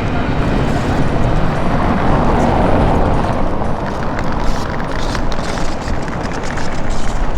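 Gusty wind rumbling on the microphone over city street noise, swelling about two to three seconds in, with light clicks and taps later on.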